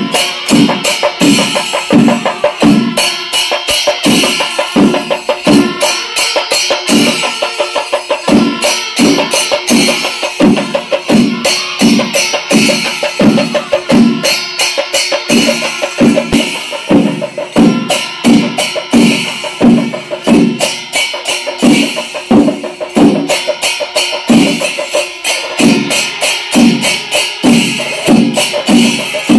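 Kerala chenda melam: massed chenda drums keeping a steady, even beat, with ilathalam cymbals clashing and kombu horns playing over it.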